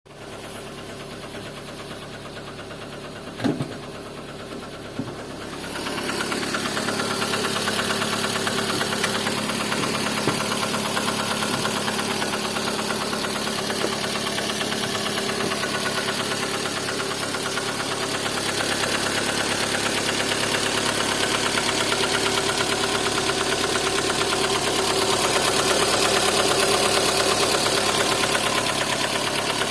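Lada Kalina engine running with a knock, the fault being recorded. It is quieter for the first few seconds, with a sharp click about three and a half seconds in, then louder and steady with a fast, even ticking from about six seconds in.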